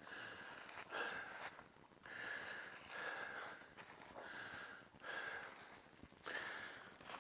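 A person's heavy breathing close to the microphone: about seven breaths in and out, each under a second, at an even pace, as from hard walking over steep ground.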